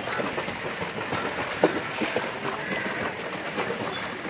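Water splashing from a swimmer's flutter kick while holding a kickboard, with one sharper splash about a second and a half in.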